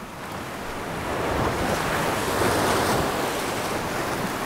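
Sea surf breaking and washing through the channels of a rocky reef shoreline. It swells up over the first second or so and then eases slightly.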